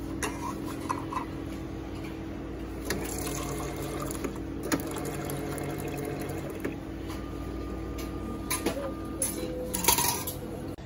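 A juice dispenser running with a steady motor hum as apple juice pours into a cup of ice, with a few clicks and knocks from the cup and the push button.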